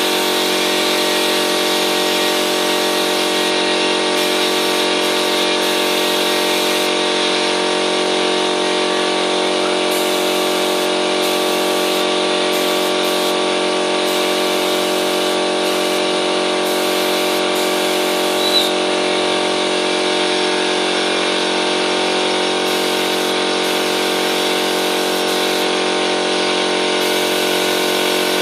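Air compressor motor running steadily, a hum of many even tones under a continuous air hiss, as it feeds a paint spray gun; one small click about two-thirds of the way in.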